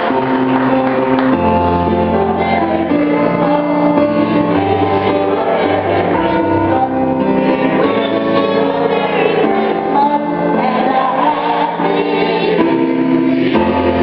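A choir of mixed voices singing a song over instrumental accompaniment, with bass notes held under the voices.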